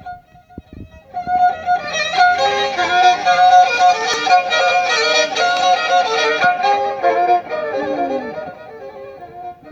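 Instrumental music with a lead melody over accompaniment. It comes in about a second in and fades near the end.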